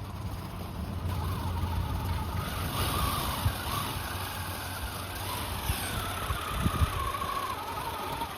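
Electric motor and gears of an RC rock crawler whining as it drives, the pitch wavering up and down with the throttle, over a low rumble with a few small knocks.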